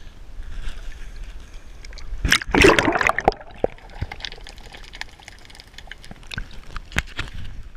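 A loud splash about two seconds in as the microphone goes under the seawater, then muffled underwater gurgling with scattered sharp clicks.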